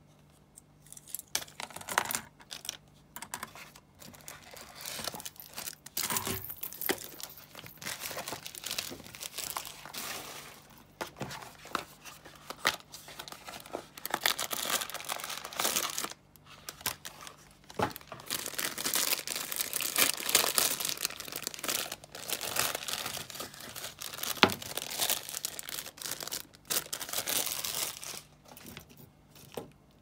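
Plastic packaging bags crinkling and tearing as hair accessories are unwrapped by hand, in irregular rustling spells with occasional sharp clicks.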